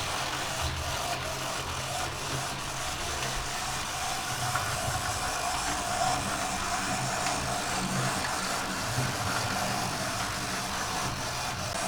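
Oxford Rail Adams Radial 4-4-2T model locomotive running steadily on track: a constant hum from its small motor, with a faint whine, over wheel and track noise.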